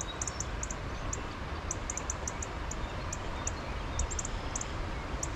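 Stream water running steadily over a shallow riffle, with a low rumble underneath. Short high-pitched chirps repeat irregularly, several a second, above the water.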